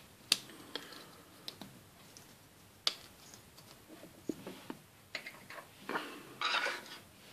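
Small hard-plastic Playmobil dollhouse chair parts clicking as they are fitted and snapped together by hand: a handful of sharp, separate clicks. Near the end, a short rustle and clatter of plastic pieces being handled on the table.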